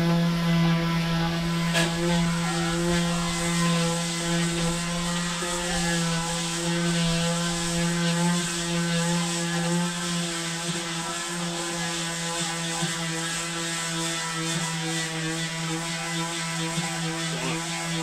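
Electric power sander running steadily on car body panels, a constant motor hum with a rasping hiss from the abrasive, taking off old sun-baked paint.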